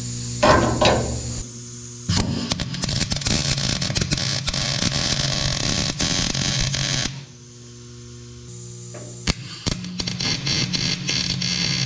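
Welding arc crackling and sizzling as tack welds are laid on steel square tubing: a run of about five seconds, a short pause, then a second run near the end.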